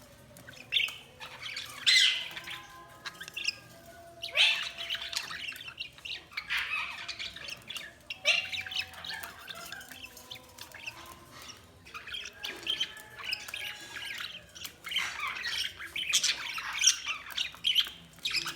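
Budgies chirping, squawking and warbling in bouts with short quieter gaps between them.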